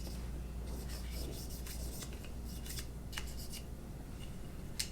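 Swab rubbing and scraping inside the magazine well of an AR-15 lower receiver, faint and scratchy, with a few light clicks near the end.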